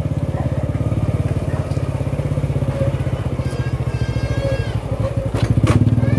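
Small motorcycle engine running at low revs with a fast, even pulsing. About halfway through there is a short high-pitched tone that dips at its end, and near the end two sharp clacks.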